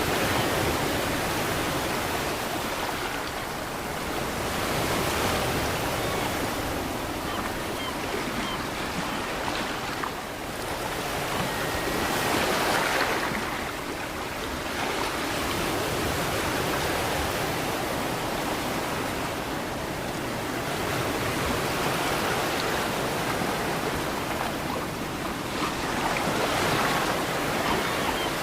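Ocean surf: waves breaking and washing in, the rushing noise swelling and easing in slow, uneven surges every several seconds.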